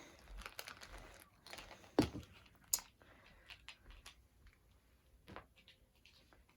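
Small plastic clicks, taps and light rustling as diamond painting tools are handled and set down, with a sharper knock about two seconds in.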